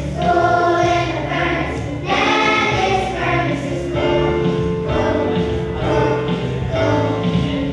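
Children's choir singing a song over instrumental accompaniment, in phrases of a second or two.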